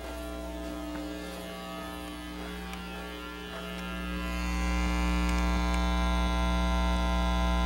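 Home stereo speakers giving out a steady electrical buzz and hiss with no signal playing, growing louder about halfway through. This is ground-loop noise: the amplifier chain and the PC feeding it are powered from different outlets with different grounds.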